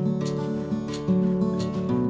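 Instrumental background music with sustained chords.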